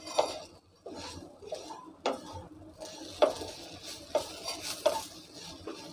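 Wooden spatula stirring and scraping semolina and grated raw potato around a non-stick frying pan in repeated, irregular strokes while the mixture fries slowly in a little oil on low heat.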